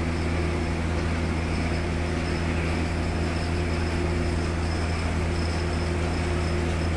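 A 1 HP Manjeet-model piston air compressor running steadily: an even low hum from its motor and pump, with a faint high whine above.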